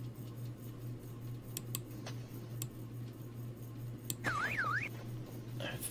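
Low steady hum with a few faint clicks, likely a computer mouse. About four seconds in, a short electronic warble sweeps up and down twice.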